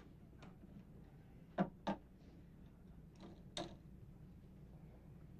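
A few short sharp knocks over a low steady room hum: two close together about a second and a half in, then a softer pair about two seconds later.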